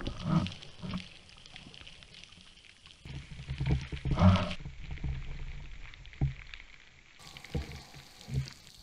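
Underwater sound picked up by a camera housing mounted on a speargun: low water rushing that swells for about a second midway, with scattered short knocks and crackles as the diver swims along the reef.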